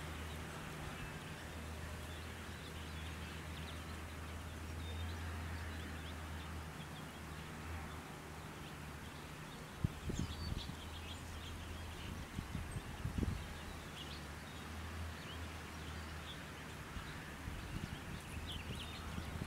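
Outdoor spring ambience: wind washing through the trees over a low, steady hum, with scattered short bird chirps and a couple of soft low thuds about halfway through.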